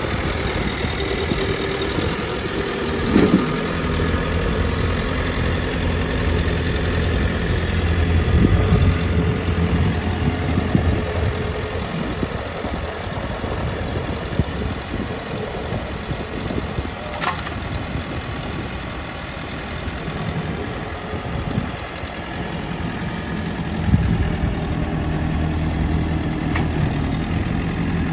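New Holland B95 backhoe loader's diesel engine running at idle, a steady low note that wavers through the middle stretch and settles again near the end. Three short sharp knocks are heard along the way.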